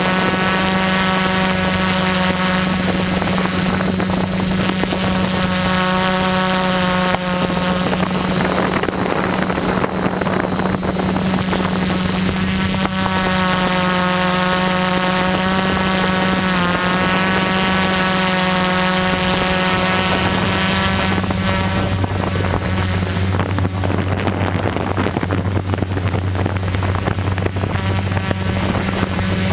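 A quadcopter's motors and propellers running steadily, heard from the camera on board, with a steady low hum whose pitch shifts now and then.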